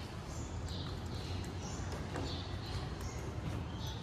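Footsteps on old wooden floorboards, a walking rhythm of about two steps a second, over a low steady rumble.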